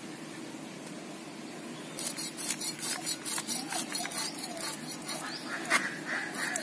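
Small rui fish being scaled against the upright blade of a bonti, the floor-mounted Bengali cutting blade. Starting about two seconds in, it makes a quick series of short rasping scrapes, several a second, as scales flake off.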